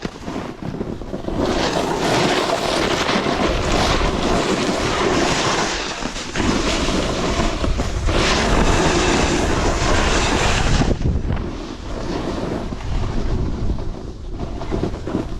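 Skis sliding over snow on a downhill ski run, with wind rushing over the microphone. The noise swells twice, from about one and a half to six seconds in and again from about eight to eleven seconds, then turns duller.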